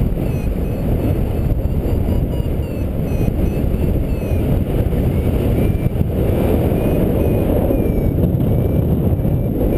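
Wind rushing over the microphone of a camera flying with a paraglider, a steady loud rumble. Through it comes the faint, rapid beeping of a variometer, its short tones stepping up and down in pitch, which signals that the glider is climbing.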